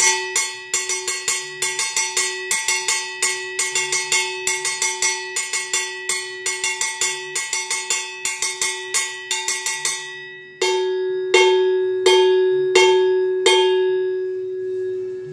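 Handmade steel mid-pitch timbale bell (cowbell) struck with a drumstick. It plays a quick rhythm for about ten seconds, then five single strokes, each left to ring out and fade.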